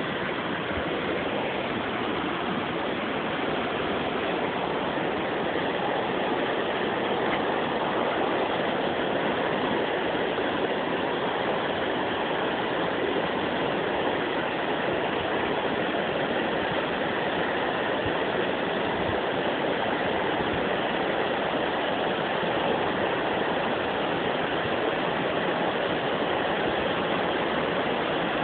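Steady rushing water flowing beneath a bridge, an even unbroken noise with no changes.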